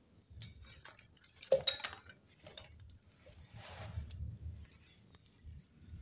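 Dry twigs and firewood sticks handled and pushed into a wood fire under a mud stove: scattered snaps, clicks and rustles, the loudest about a second and a half in.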